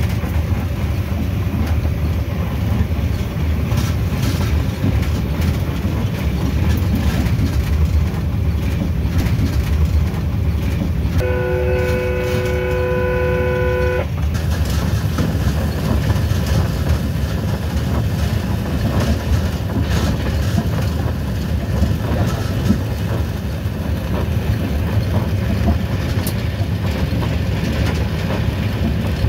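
Train running at speed, a steady low rumble, heard from the cab. About eleven seconds in, the train horn sounds one long chord-like blast of nearly three seconds.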